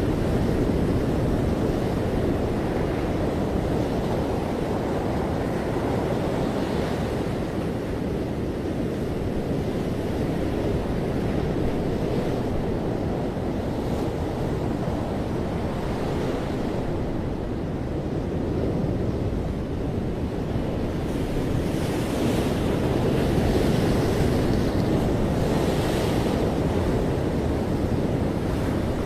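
Ocean surf breaking on a beach: a continuous rushing wash that swells and eases every few seconds, with low rumble from wind on the microphone.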